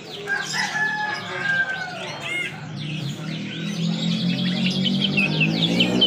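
Many small caged songbirds chirping and twittering together, with one longer drawn-out call near the start. A low steady hum of music fades in under them in the second half.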